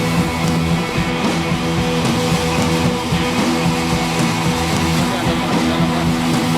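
Background music led by guitar, with held chords that change every second or two.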